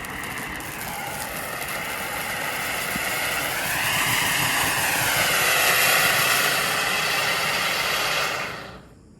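Homemade handheld tube firework (tezutsu hanabi) packed with dragon fountain fireworks, spewing sparks with a loud rushing hiss that grows louder and wavers in pitch. It dies away quickly about eight and a half seconds in as the charge burns out.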